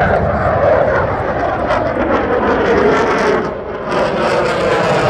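Eurofighter Typhoon's twin EJ200 turbofans roaring during a display flight, a loud continuous jet rush. It dips briefly about three and a half seconds in, then comes back with more hiss.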